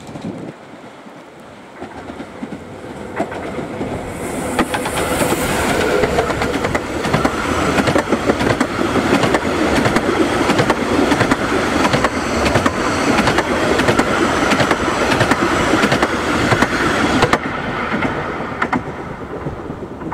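Bure Valley Railway No. 9 Mark Timothy, a 15-inch gauge steam locomotive, passing close with its train of coaches. There is a steady rumble with the wheels clicking over the rail joints, and a brief high hiss about four seconds in. The sound builds to its loudest while the coaches go by and fades away near the end.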